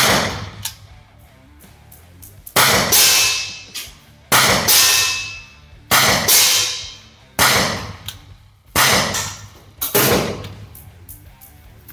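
T4E TP50 Gen2 .50-calibre CO2 home-defence pistol fired seven times, a sharp crack every one and a half to two and a half seconds, each with a long echo off the range's concrete walls. Some shots are followed a split second later by a clang of the polyball striking the target.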